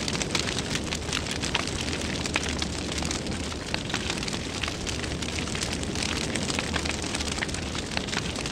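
Fire burning: a steady low roar of flames with frequent sharp crackles and pops.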